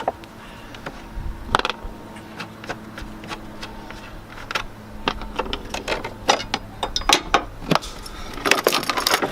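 Scattered clicks and knocks of tools and parts being handled around the car's battery holder, with a sharper knock about a second and a half in and more frequent clicking in the second half, over a faint steady hum.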